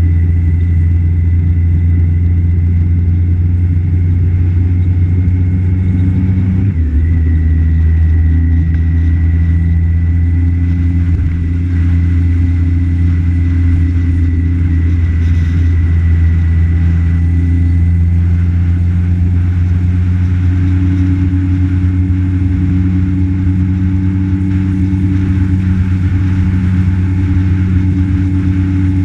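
Road vehicle's engine running steadily at cruising speed with road noise; the engine note shifts briefly about seven seconds in.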